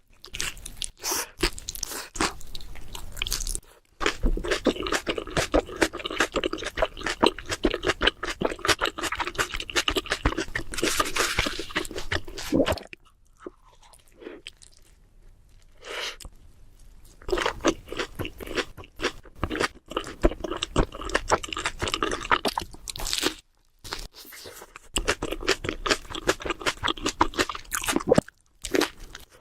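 Close-miked chewing and crunching of a Subway sandwich, with a quieter stretch of softer chewing around the middle.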